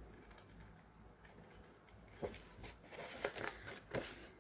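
Scissors snipping through a large printed paper piece, several short separate cuts in the second half with light paper rustling.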